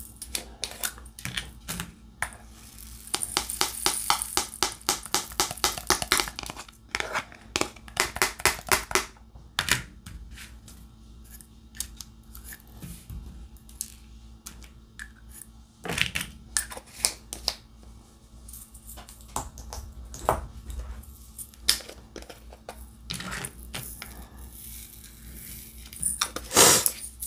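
Diamond painting handling sounds: small resin drills clicking and rattling in a plastic drill tray and being tapped onto the canvas with the drill pen, in quick runs of clicks broken by pauses of single ticks, with a louder clatter near the end.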